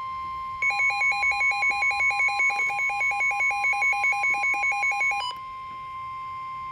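Emergency alert tones before a flood warning: a steady electronic tone near 1 kHz, like a weather radio's warning alarm tone. Over it, a fast beeping that alternates between two pitches at about four or five beeps a second starts about half a second in and cuts off abruptly about five seconds in, leaving the steady tone.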